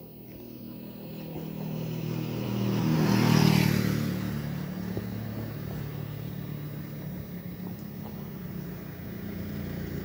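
A motor vehicle's engine running. It swells to its loudest about three and a half seconds in as the vehicle goes by, then carries on more steadily.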